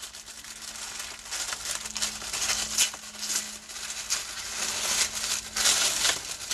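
Tissue paper rustling and crinkling as hands unseal and unfold it, getting louder and busier near the end.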